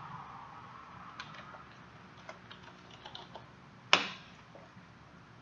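Scattered computer keyboard and mouse clicks, with one much louder sharp click about four seconds in. A faint hum fades out in the first second and a half.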